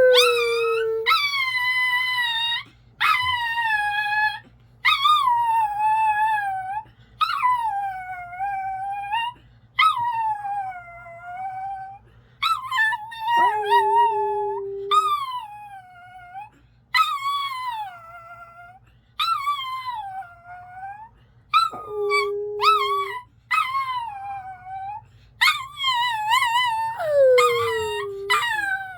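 Pet dog howling along in a long string of 'singing' howls, each a second or two long, sliding down and back up in pitch. A lower, steady held note sounds between the howls a few times.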